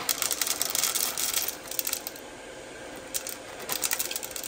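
Roasted coffee beans poured from a paper bag, clattering into a clear container on a scale. A quick run of clicks lasts about the first second and a half, then a few stray beans drop in near the end.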